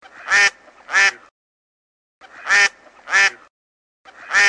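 A duck quacking in double calls, quack-quack, with a pair about every two seconds: two pairs and the first call of a third.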